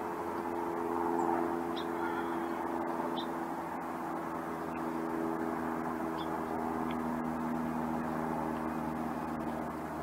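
Steady hum of a running engine, with held low pitches that slowly drift, and a few brief, faint high chirps.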